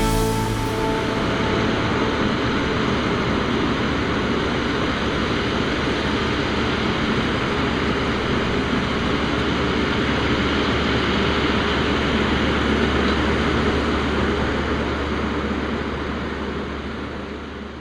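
Dewulf potato harvester running steadily in the field: a low engine hum under a broad, even noise of working machinery, fading out near the end.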